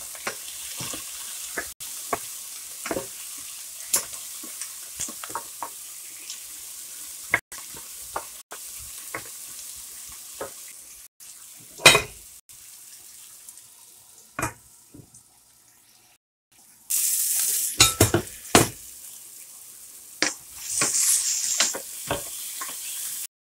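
Prawn cuttlefish balls sizzling in oil in a stainless steel pan with chopped ginger, garlic and onion, with scattered clicks and scrapes of a spatula stirring them. The sizzle grows louder for a stretch about three-quarters of the way through and again near the end.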